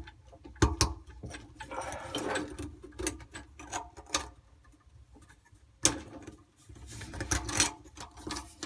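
Irregular clicks, taps and brief rattling of faucet mounting parts, seals and nut, being handled and fitted onto the faucet's underside. One sharper knock comes about six seconds in, and a cluster of clicks follows shortly after.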